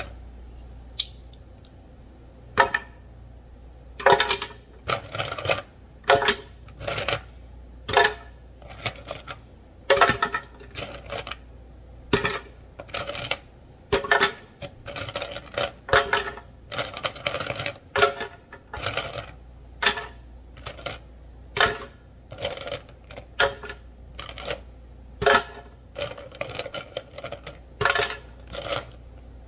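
Ice cubes dropped one at a time into an empty clear plastic blender jar, each landing with a sharp clack against the plastic and the cubes already inside. The drops come irregularly, roughly one or two a second.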